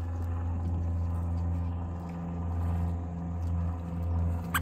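A steady low hum from a running engine or motor, with one brief click near the end.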